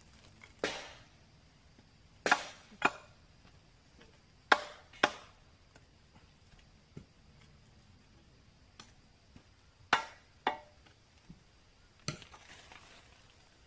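A clamshell post-hole digger and a long-handled spade jabbing into packed soil while a pole hole is dug by hand. About nine sharp chopping strikes come at uneven intervals, several in pairs about half a second apart.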